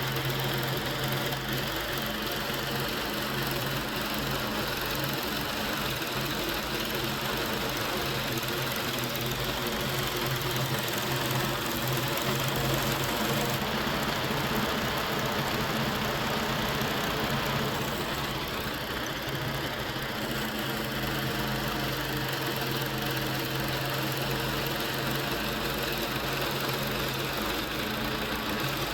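Harbor Freight portable band sawmill running steadily under its engine, the band blade cutting through a cypress log.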